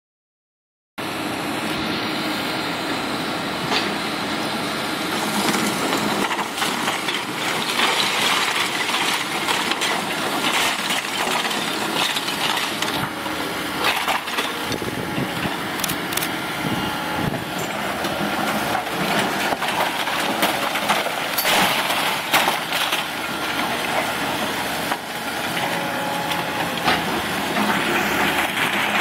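Hydraulic excavators demolishing a brick building: engines running under repeated cracks and crashes of breaking brick and timber and falling debris.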